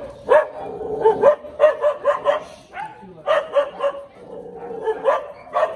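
Dog barking in a rapid run of short, sharp barks, several a second with brief pauses between runs.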